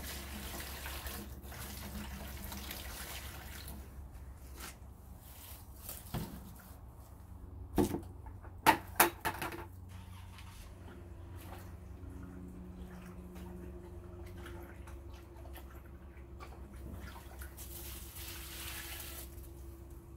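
Water splashing and running as plastic cat litter boxes are rinsed out, with three sharp knocks about eight and nine seconds in.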